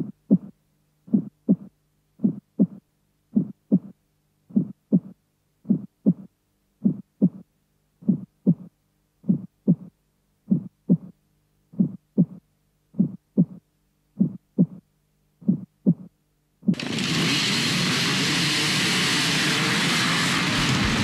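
Heartbeat sound effect: slow double thumps a little over once a second, with silence between. About three-quarters of the way through it gives way suddenly to the loud, steady noise of a large field of enduro motorcycles running together at a mass start.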